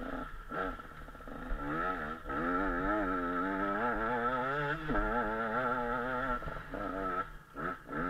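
KTM 125 SX two-stroke single-cylinder dirt bike engine under way, its pitch rising and falling as the throttle is worked over the ruts. Near the end it dips briefly as the throttle is rolled off, then picks up again.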